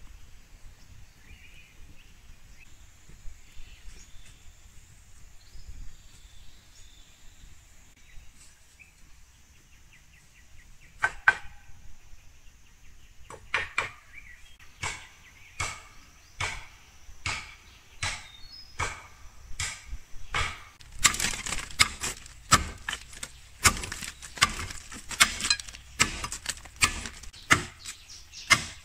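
Machete chopping into a green bamboo stalk: sharp strikes, about one a second at first, then louder and quicker, about two a second, from about two-thirds of the way in. Before the chopping there is only faint outdoor background.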